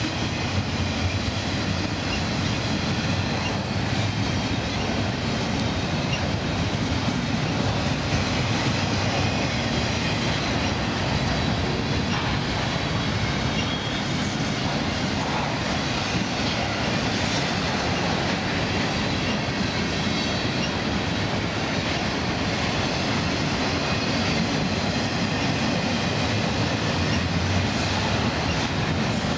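Double-stack intermodal freight train's container well cars rolling past steadily: a continuous rumble and clatter of steel wheels on rail.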